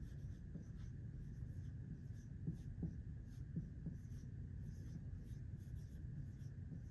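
Dry-erase marker writing on a whiteboard: faint scratchy pen strokes, with a few brief squeaks near the middle.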